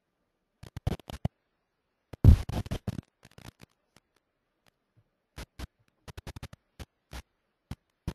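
A scatter of short clicks and scratchy knocks close to the microphone, with a louder, denser run of scratching knocks a little over two seconds in and single clicks spread through the rest.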